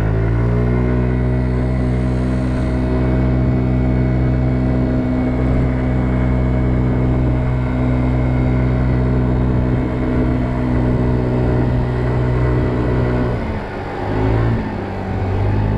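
Kymco Agility 50 scooter's 50cc engine running at a steady pitch under way, heard from the rider's seat. About thirteen seconds in, its pitch and level dip and waver briefly, then return to the steady note near the end.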